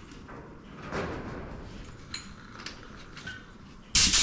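Small hand-held sandblasting gun loaded with dry iron sand, giving a short, loud hiss of air and grit near the end, after a few faint handling clicks.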